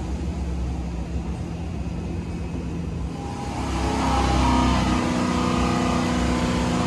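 Carbureted 436-cubic-inch small-block Chevy V8 stroker running on an engine dyno, heard from behind the control-room glass. About three and a half seconds in it gets louder and settles into a steady pitch, held by the dyno near 3,900 rpm.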